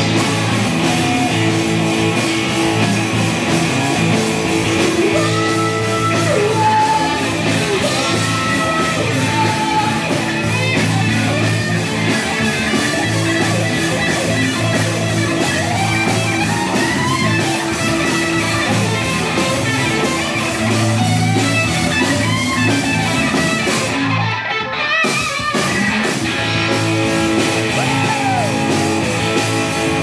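Live rock band playing loudly: distorted electric guitars, bass guitar and drum kit. The cymbals and high end drop out for a moment about three-quarters of the way through before the full band comes back in.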